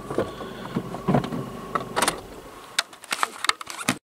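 Inside a stopped car: a steady low hum with a faint whine, and a string of sharp clicks and knocks, thicker in the second half, before the sound cuts out abruptly at the end.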